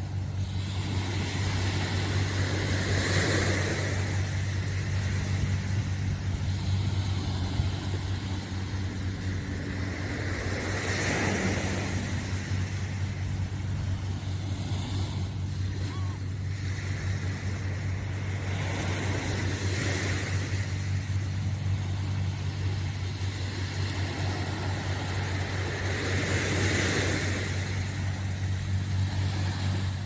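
Small sea waves washing onto a sandy shore, swelling and fading about every eight seconds, over a steady low motor hum.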